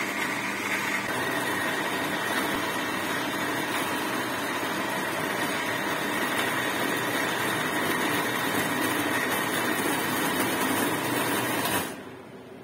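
Electric countertop blender running steadily, chopping chunks of raw tomato, raw mango and herbs into a coarse chutney. The motor cuts off near the end.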